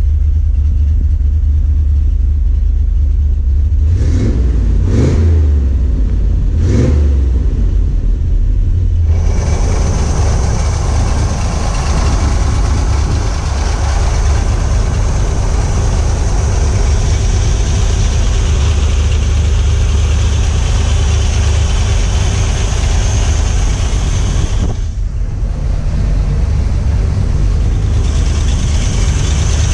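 1967 Corvette's L79 327 small-block V8 idling steadily, with three short surges about four to seven seconds in. From about nine seconds in it is heard in the open engine bay and sounds fuller and brighter.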